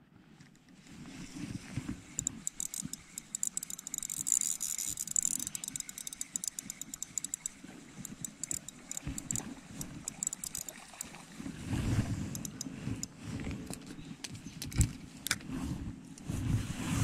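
Daiwa Exist spinning reel being cranked, a dense fine ticking for several seconds. Handling knocks and thumps take over in the last few seconds.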